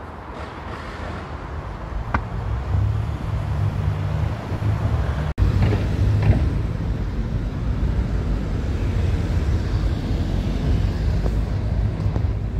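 Outdoor urban street noise: a steady low rumble of traffic and air, with a brief cut-out about five seconds in.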